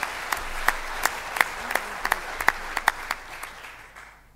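Audience applauding, a dense patter of clapping with single sharp claps standing out, fading out near the end.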